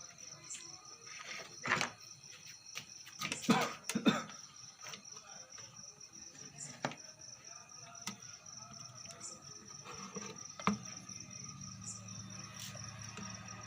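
Scattered clicks and knocks of a small driver transformer being handled and pressed into place on an amplifier circuit board, the loudest pair about three and a half to four seconds in.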